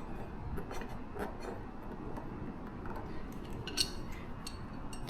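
Light metallic clicks and clinks of a mower blade bolt and washer being threaded on by hand, with one sharper click near the end.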